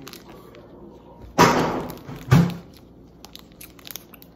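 Someone chewing a bite of a chocolate-covered snack cake, with two short breathy "mm" sounds about a second and a half and two and a half seconds in, and faint crinkling clicks from its plastic wrapper.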